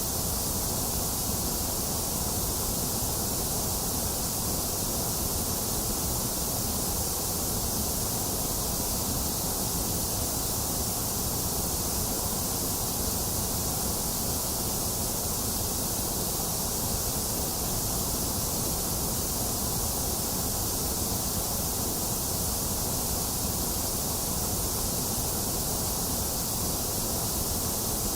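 Steady, unchanging synthetic white noise for sleep: a bright hiss over a lower rushing, with no breaks or events.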